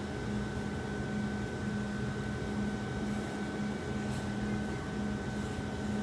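Steady mechanical hum: a low tone pulsing about twice a second over an even noise, with a fainter high steady whine.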